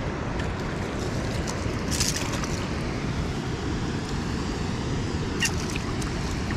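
Steady rush of river water flowing below a dam, with wind on the microphone. Two short, sharp sounds cut through, about two seconds in and again near the end.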